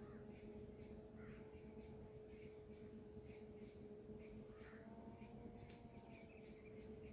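Faint insect trill, a steady high-pitched buzz that breaks briefly about once a second, over a faint low steady drone.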